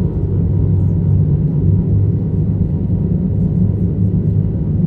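A steady, loud, low rumbling drone that holds even throughout, with a faint thin high whine above it.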